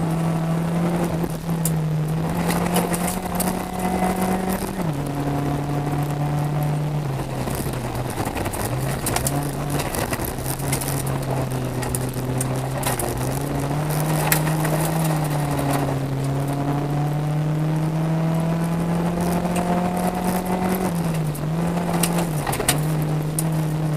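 Rally car engine heard from inside the cabin at speed on a gravel stage, its pitch stepping down about five seconds in, climbing slowly later on, and dipping twice near the end as the driver lifts and changes gear. Loose gravel clicks and rattles against the car now and then.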